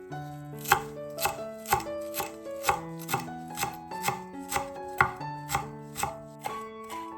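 Kitchen knife chopping food on a cutting board in a steady rhythm, about three strokes a second.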